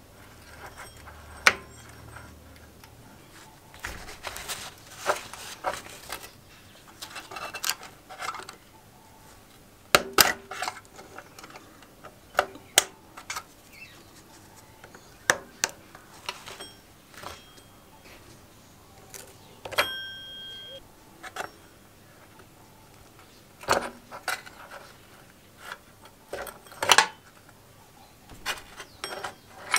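Rusty steel roller chain on an old Suffolk Super Punch mower's sprocket drive being worked by hand and with a thin pin: irregular metallic clinks, rattles and sharp taps, with one short metallic ring about two-thirds of the way through.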